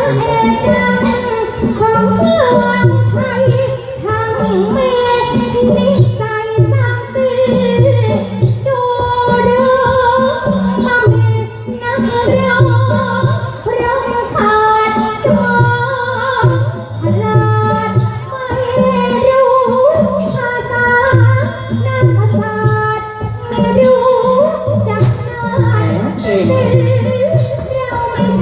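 A likay song: a singer's held, melodic lines over a band accompaniment with a steady pulsing bass beat.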